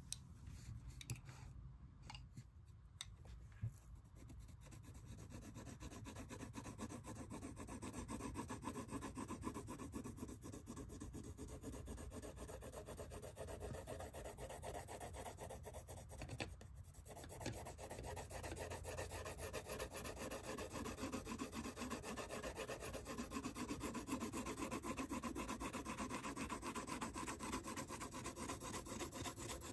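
Colored pencil shading on sketchbook paper: a steady scratchy rub of rapid back-and-forth strokes. It starts softer with a few light taps, grows louder after a few seconds, and stops briefly a little past halfway.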